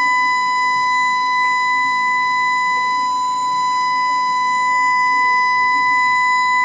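Steady electronic tone held at one unchanging high pitch, loud and unbroken.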